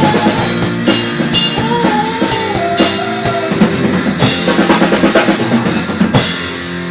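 A rock band playing: drums in a busy fill under a melody line, the drums stopping about six seconds in and leaving a held low chord ringing.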